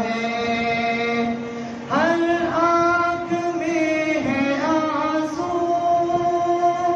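A man's solo voice chanting an Urdu nazam, a devotional poem, in long drawn-out notes. About two seconds in, the pitch steps up sharply, and the higher note is held for most of the rest.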